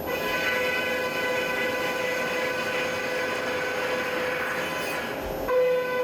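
Brother SPEEDIO U500Xd1 machining centre milling aluminium with a ø20 end mill: a steady high-pitched cutting tone with overtones over a hiss of chips. About five and a half seconds in, the tone shifts and strengthens.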